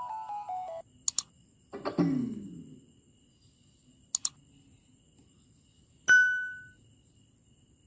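JBL Go 2 Bluetooth speaker's button clicks and its electronic prompt tones: a stepped chime of falling notes ending about a second in, two pairs of sharp clicks, a falling tone around two seconds in, and a single bell-like ding about six seconds in.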